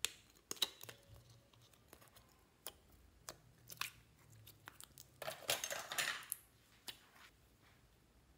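Small plastic slime containers handled and opened by hand: scattered sharp clicks and taps of the plastic lids and cases, with a crackling rustle lasting about a second midway.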